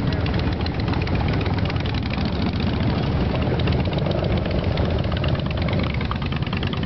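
Motorcycle engine running steadily, with rapid, even firing pulses over a deep rumble.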